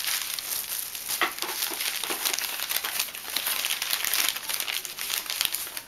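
Wrapping crinkling and rustling continuously as a wrapped item is unwrapped by hand, a dense patter of small crackles.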